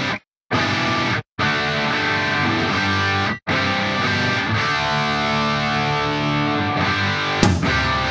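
Rock-style background music with distorted guitar, cut off abruptly to silence a few times in the first few seconds, then running unbroken, with a sharp hit near the end.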